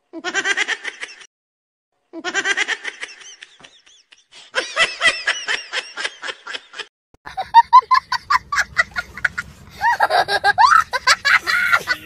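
Laughing in three bursts with short silent pauses between them. In the last few seconds it turns into louder, near-continuous laughter over a low rumble.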